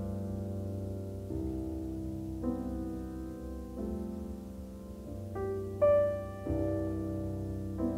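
Background music: slow, sustained piano chords that change about every second and a half, with a brighter high note about six seconds in.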